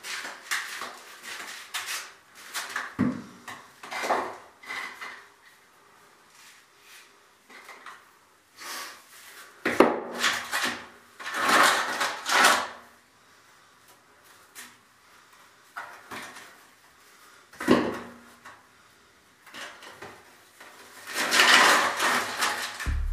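Irregular knocks and scrapes of something being handled and dragged on a concrete floor, with a few longer rasping scrapes around the middle and again near the end.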